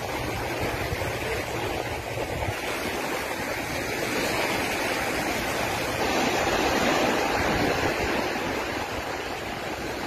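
Steady rushing outdoor noise on a beach, a little louder from about six seconds in.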